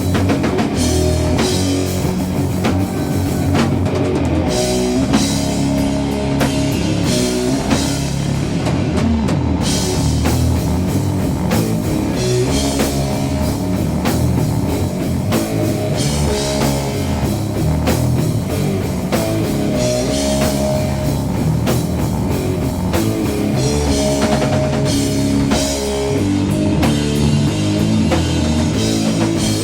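Doom metal band playing an instrumental passage: distorted electric guitars and bass over a drum kit keeping a steady beat, with no singing.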